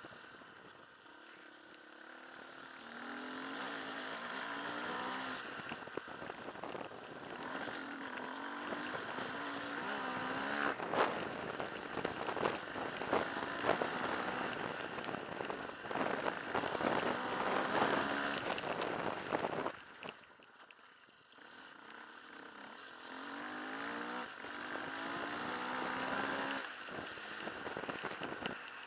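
Off-road motorcycle engine climbing in pitch again and again as it pulls up through the gears, over a constant rush of wind and road noise, with a flurry of knocks and rattles over rough ground through the middle. About two-thirds through, the engine sound drops away for a second or so, then picks up again.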